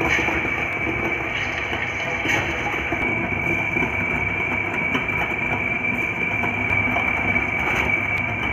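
Electric tabletop wet grinder running steadily, its stone roller grinding soaked green gram, rice, green chillies and ginger into pesarattu batter, with a constant high whine over the grinding noise.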